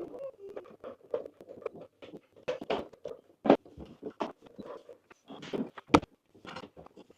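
Irregular clicks, taps and knocks of hardware being handled while working inside a server case, with two sharper knocks about three and a half and six seconds in.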